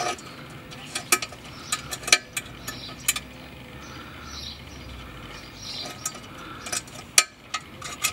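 Helicoil insertion tool being turned by hand, winding a steel coil thread insert into a freshly tapped M10 hole in a suspension lower arm: irregular metallic clicks and light scraping, a handful of them sharper than the rest.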